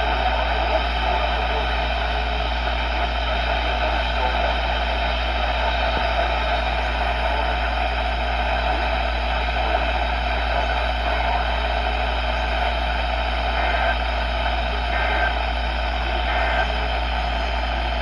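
Weather alert radio speaker putting out steady static hiss over a constant low hum, from the NOAA Weather Radio signal.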